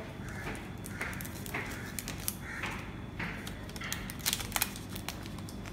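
Handling noise from a new smartphone and its packaging: light rustles about every half second and a few sharp clicks, two of them close together about four and a half seconds in.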